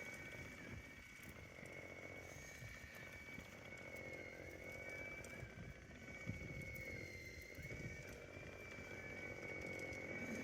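A faint small engine running steadily, with a thin high whine held throughout, and a few soft low thuds.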